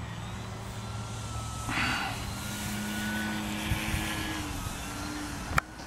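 Electric brushless motor and propeller of a Dynam Sbach 342 RC aerobatic plane flying overhead: a steady drone whose pitch shifts a couple of times. A short rush of noise about two seconds in, and a sharp click near the end.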